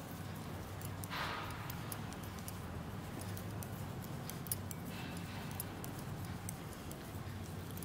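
Metal knitting needles clicking faintly and irregularly as stitches are worked, with a brief rustle of yarn and hands about a second in, over a low steady hum.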